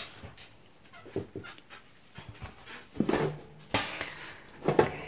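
A puppy breathing close to the microphone in short, irregular, noisy breaths, the three loudest in the second half.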